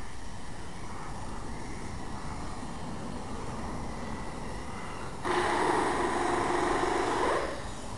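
Steam cleaner jetting steam into a car's interior: a steady hiss, then a louder hiss with a hum for about two seconds past the middle, starting and stopping abruptly.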